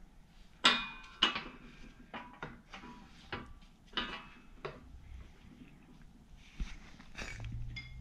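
Metal clanks and clinks as a truck driveshaft's U-joint yoke is shifted and lined up under the ram of a hydraulic shop press. The loudest clank comes about a second in and rings briefly, followed by a string of lighter knocks.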